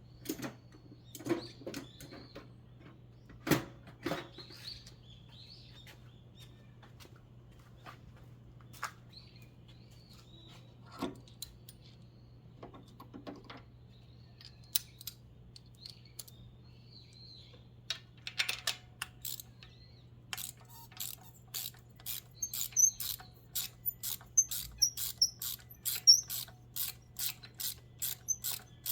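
Scattered clicks and knocks of hand tools, with birds chirping in the background. About two-thirds of the way through, a ratchet wrench starts clicking steadily, about two to three clicks a second.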